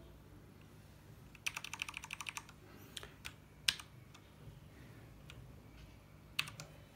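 Keys of a Cherry-switch mechanical keyboard being typed on: a quick rattle of about a dozen and a half keystrokes, then a few single key presses spaced out.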